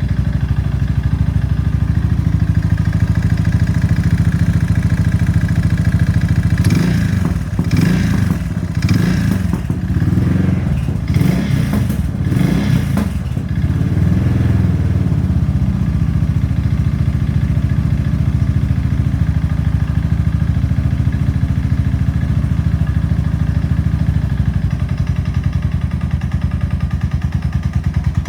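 Suzuki LS650's single-cylinder four-stroke engine running with a knock: piston slap from a seized piston that has left excessive piston-to-cylinder clearance. From about seven to thirteen seconds in, a louder, rougher stretch of noise rides over the engine.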